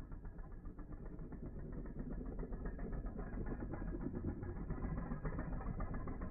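Two all-metal Beyblade spinning tops whirring on a plastic stadium floor, with a steady, rapid rattle as they stay pressed together and grind against each other, slowly growing a little louder.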